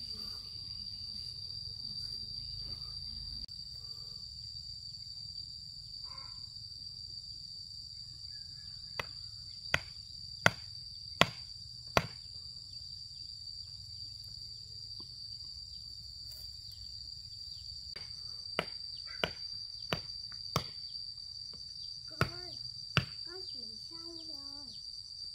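Sharp strikes of a hand tool on hard ground or stone in two runs of about five blows, roughly 0.7 s apart, over a steady high drone of insects.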